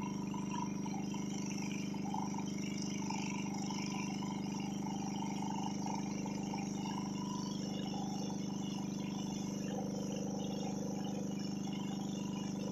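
Pumpboat engine running steadily at cruising speed, a constant droning hum, with water hissing past the hull.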